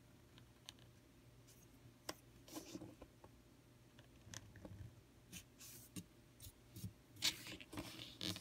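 Reed pen (qalam) scratching on paper in short, scattered strokes as calligraphic letters are drawn. The scratching is faint and grows denser and louder near the end.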